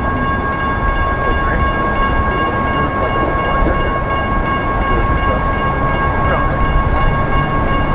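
Electronic railroad crossing bells (GS Type 1 e-bells) ringing steadily as a set of high unbroken tones over a low rumble of traffic and wind: the crossing is active for an approaching or passing light rail train.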